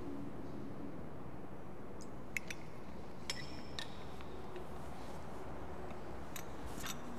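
A few light clinks and taps of small metal cruets against a metal chalice and the altar top as the offertory vessels are handled, one clink leaving a brief ringing tone, over a steady low room hiss.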